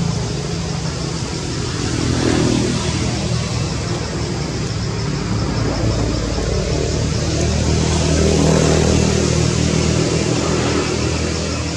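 Motor vehicle engine running, a low steady hum that swells twice, over a steady high hiss.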